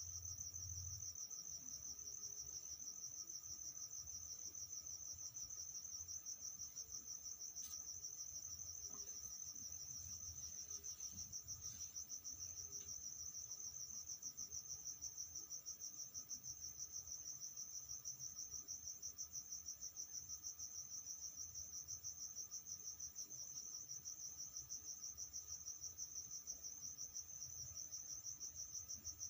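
Steady, high-pitched insect chirping in a continuous trill that pulses several times a second, typical of a cricket.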